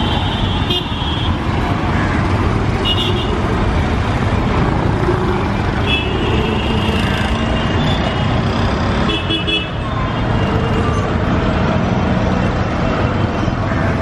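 Busy city street traffic: auto-rickshaw and car engines running past, with short horn toots about four times.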